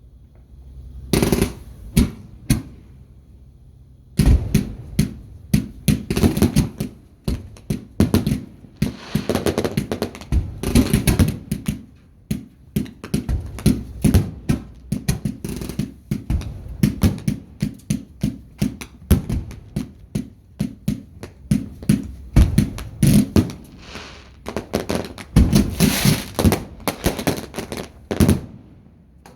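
Fireworks going off in rapid, irregular bangs, starting about a second in and running on almost to the end, with denser, louder stretches of bangs.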